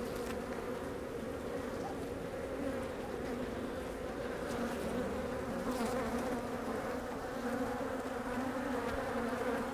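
Dense swarm of honey bees buzzing steadily around an opened hive, with many bees agitated and giving off alarm pheromone.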